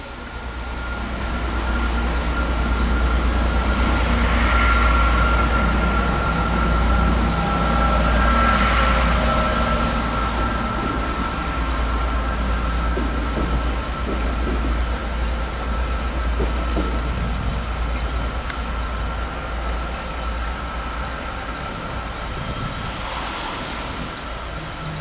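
Diesel train running through the station, a deep engine rumble with a steady whine above it. It grows louder over the first few seconds and then slowly fades.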